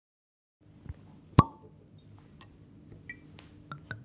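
A wine bottle and glass being handled: one sharp glassy clink with a brief ring about a second and a half in, then light ticks and small splashes as red wine starts to pour into a stemmed wine glass near the end.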